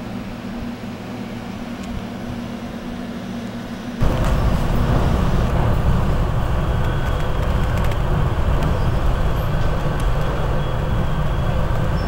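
SEPTA electric commuter railcars running past with a steady low hum. About four seconds in this gives way abruptly to the much louder, steady rumble of riding in the first car of a SEPTA train at speed, with a faint steady whine over it.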